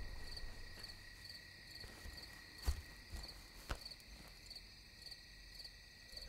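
Crickets chirping in a steady rhythm, a short high chirp about twice a second, with two soft clicks in the middle.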